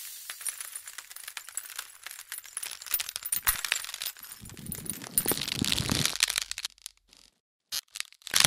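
Ice crackling and glass clinking: many small sharp cracks and clicks, thickening into a denser, louder crackle about halfway through, then a short silence and a sharp hit right at the end.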